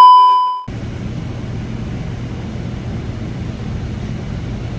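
A loud steady test-tone beep, the tone that goes with TV colour bars, used as an edit transition; it fades out under a second in. A steady low background hum follows.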